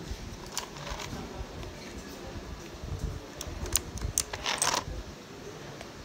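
Sharp plastic clicks and taps from a USB Type-C cable being handled and pushed into the port on the underside of a mechanical keyboard: a few scattered clicks, then a quick cluster of the loudest ones about four and a half seconds in.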